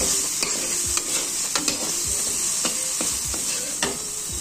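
Boiled peas frying in masala in a pan, sizzling steadily, with repeated strokes of a spatula stirring and scraping the pan at irregular intervals.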